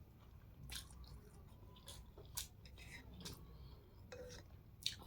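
Close-miked mouth sounds of someone eating noodles: soft chewing with scattered wet clicks and smacks.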